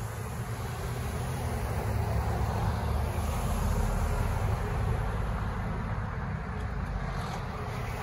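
Road traffic: cars driving close past, a steady rush of tyre and engine noise that swells a little around the middle.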